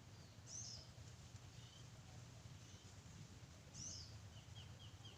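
A bird calling in a quiet, rural setting: a short, high arching call twice, about three seconds apart, then a quick run of about five faint chirps near the end, over a low steady hum.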